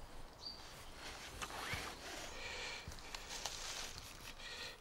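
Hazel rods being worked by hand for a wreath: faint rasping scrapes and small clicks and creaks of the wood as the tapered ends are shaped and bent into place.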